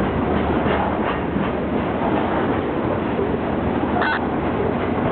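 Freight train of loaded stone hopper cars rolling past, a steady rumble with wheel clatter. About four seconds in, a short high-pitched tone sounds briefly.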